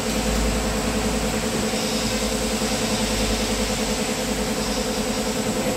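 Yamaha Aerox 155 scooter's single-cylinder engine idling steadily.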